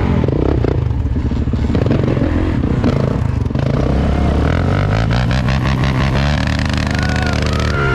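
Kawasaki KX450 dirt bike's single-cylinder four-stroke engine running under way, its revs shifting up and down and climbing steadily near the end.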